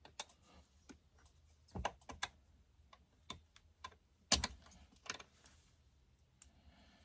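Irregular clicks and knocks of hand tools and small chainsaw parts being handled during a teardown, with two heavier knocks about two and four seconds in.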